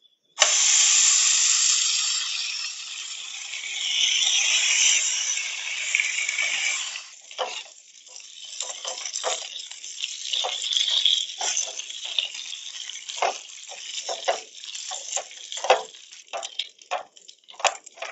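Bacon strips frying in a hot pan on a camp stove. A loud sizzle starts suddenly about half a second in as the bacon goes into the pan, then after about seven seconds it settles into lighter crackling and popping.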